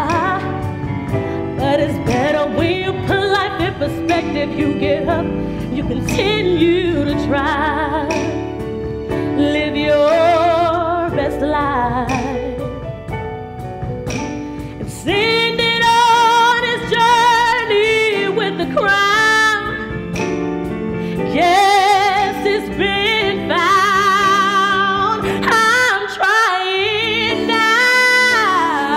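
A woman singing solo into a microphone with a live band accompanying her, drums and keyboard. About halfway through her voice grows louder and climbs higher, with a wide vibrato on the held notes.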